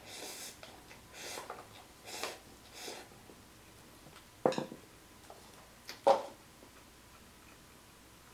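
A person breathing sharply through the nose several times in the first three seconds, reacting to the burn of ghost pepper noodles; then two louder sharp clinks of tableware about a second and a half apart.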